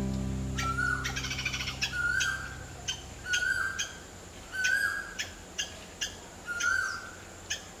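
A bird calling over and over, a short call about once a second, each a sharp start dropping into a lower falling note. An acoustic guitar chord rings and fades away during the first two seconds.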